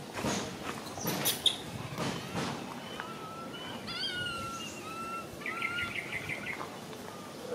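Wild birds calling: a few short clear whistled notes about halfway through, then a quick trill of notes. A few short scuffs or knocks come in the first couple of seconds.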